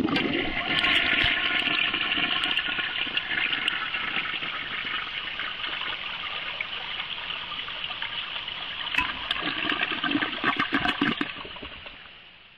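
Eljer Sylenta toilet flushing: water rushing and swirling down the bowl, turning choppy about nine seconds in, then fading away.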